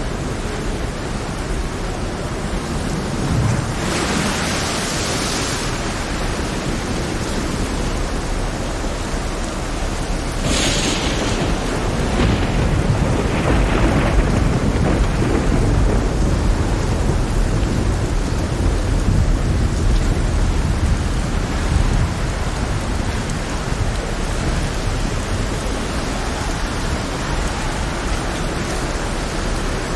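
Heavy rain falling steadily, with thunder rolling low through the middle. There are two brief hissing surges, about four and eleven seconds in.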